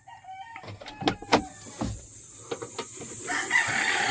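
A few sharp knocks and clicks about a second in, then a rooster crowing near the end.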